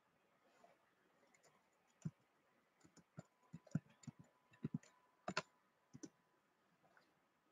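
A faint, irregular run of a dozen or so short sharp clicks between about two and six seconds in.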